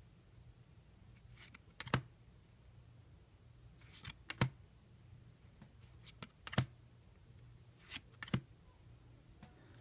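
Trading cards being handled and set down one by one: several short, sharp taps and snaps spaced a second or two apart, over a faint low hum.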